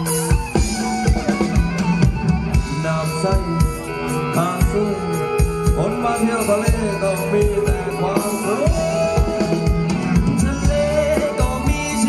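Live Thai ramwong dance band music over a PA system: an instrumental passage with a steady drum beat under the melody.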